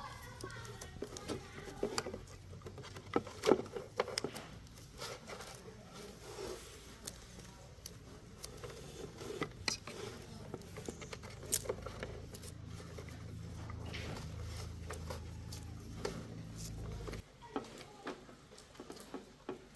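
Scattered clicks and light taps, like small parts and tools being handled, over a low steady hum that cuts off suddenly near the end.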